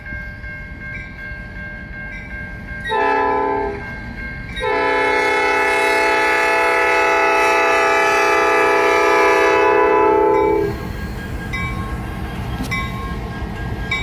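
Diesel locomotive's air horn sounding several tones at once: a short blast about three seconds in, then a long blast of about six seconds. Under it the crossing's Safetran electronic bell dings steadily. After the horn, the locomotive's engine and wheels rumble as it reaches the crossing.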